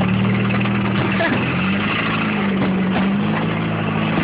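An engine running steadily, a low drone whose pitch shifts slightly about a second in, with faint scattered pops over it.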